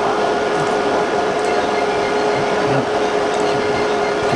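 Steady whirring hum of running fans, with two steady tones in it and no change in level.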